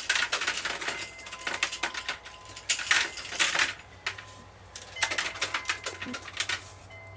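Dry Hickory King corn kernels rattling and clicking off the cob as the ear is twisted through a Decker hand corn sheller and the kernels fall into a bucket. It comes in quick bursts of clicks, with a short lull about four seconds in.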